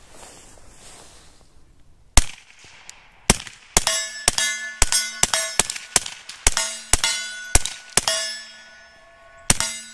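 Glock 17 9mm pistol fitted with a Gemtech Blackside 45 suppressor, fired rapidly about fifteen times from about two seconds in, loading 147-grain Speer hollow points (subsonic). Most hits ring an AR500 steel plate target, which keeps ringing between shots.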